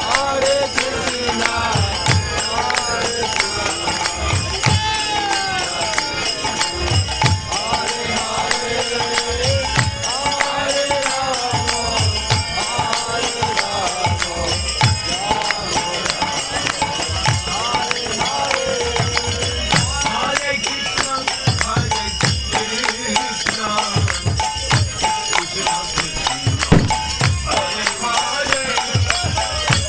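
Devotional kirtan music: voices singing a chant over hand cymbals ringing without a break and a drum striking in the low end.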